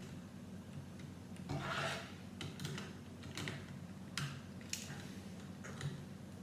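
Small plastic Lego pieces being handled: a brief scraping rub about a second and a half in, then several light separate clicks as a minifigure is fitted into a Lego car.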